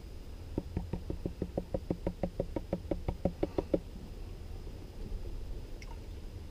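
A rapid, even run of about twenty light knocks, some six a second for about three seconds, each with a slight ringing pitch, growing louder toward the end.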